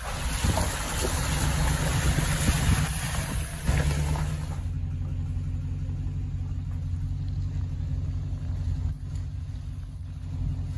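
Motor vehicle engine running with a steady low hum. A loud rushing noise over it cuts off suddenly a little under halfway through, leaving the engine hum on its own.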